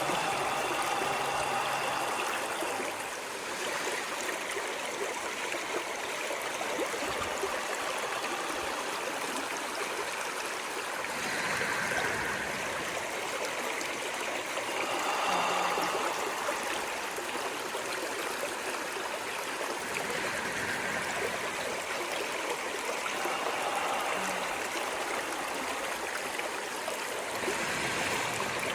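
Stream water running, a steady rushing with gurgles, swelling slightly every few seconds.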